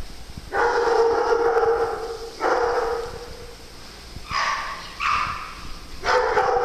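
A dog howling in about five long, steady calls, the first the longest.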